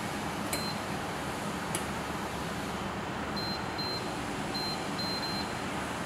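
Touch-control panel of a glass-panel convection heater beeping as its buttons are pressed: a short beep about half a second in, another near two seconds, then a run of four quick beeps in the second half. A steady hiss runs underneath.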